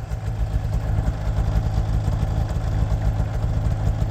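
Snowmobile engine idling steadily while the machine stands still.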